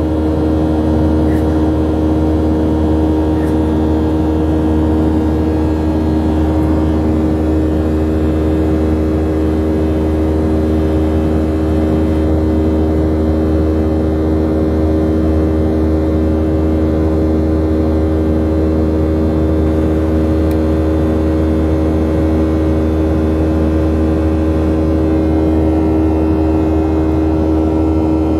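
Airliner jet engines heard inside the passenger cabin during the climb after takeoff: a loud, steady rumble with a constant droning hum and no change in pitch.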